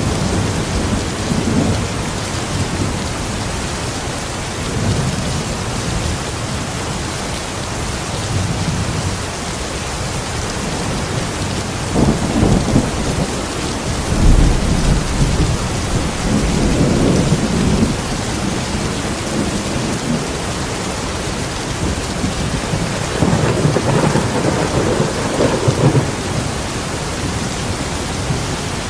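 Steady rain with thunder rumbling and rolling several times, loudest about halfway through and swelling again near the end.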